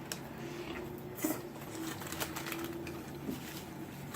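Quiet eating and handling noises at the table: a few soft clicks and small rustles, with a faint low hum from about half a second in until about three seconds in.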